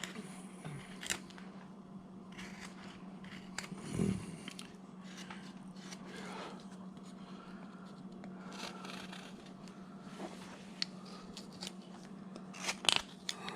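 Hand carving knife cutting wood in short, irregular slicing strokes and scrapes as a carving's feet are rounded, with one dull knock about 4 s in and a quick run of sharp cuts near the end. A steady low hum runs underneath.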